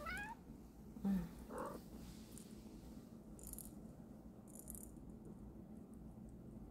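A young kitten's short, high mew, rising in pitch, right at the start, followed by a couple of faint soft sounds and two brief rustles; otherwise quiet.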